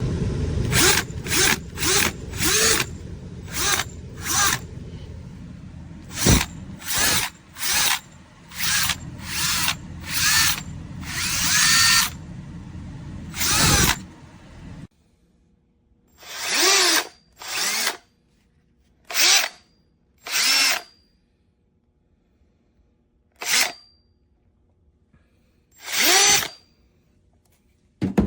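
Milwaukee 2606-20 18 V cordless drill/driver triggered in short bursts, the motor whirring up and winding down each time. About fifteen quick pulses come in the first fourteen seconds, one of them held a little longer, then six more widely spaced runs follow.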